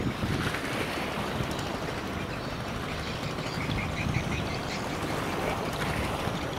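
Wind buffeting the microphone over the rumble and wash of ships on the river. About two and a half seconds in, a bird gives a quick run of about eight short, high calls.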